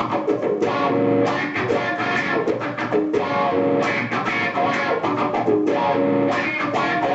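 Funky instrumental intro led by electric guitar, with chords struck in a steady, even rhythm.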